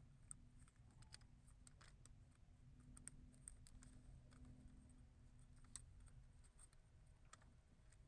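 Near silence with faint, scattered small clicks and light handling noise from gloved hands working among the wiring harness under a steering column.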